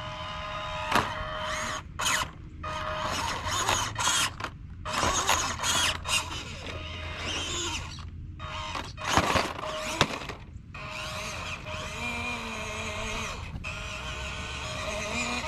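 Electric motor and gear drivetrain of a 1/18-scale EazyRc Glacier RC crawler whining in short throttle bursts as it climbs, stopping and starting again several times, with a few knocks from the tyres on the wood.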